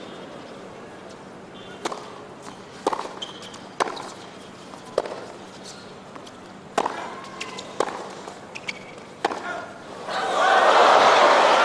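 Tennis rally: sharp racket strikes and ball bounces about a second apart. About ten seconds in, the crowd bursts into loud cheering and applause as the point ends.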